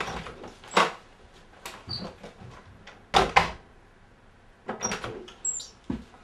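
Interior door with a round knob being handled: the knob rattling and the door opening and shutting, heard as a string of sharp clicks and knocks with a few brief squeaks. Two loud knocks about three seconds in are the loudest, followed near the end by a cluster of smaller bumps.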